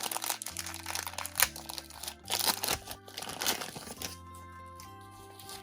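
Plastic toy packaging crinkling and crackling as a small doll piece is unwrapped, over light background music; the crinkling stops about four seconds in and the music carries on alone.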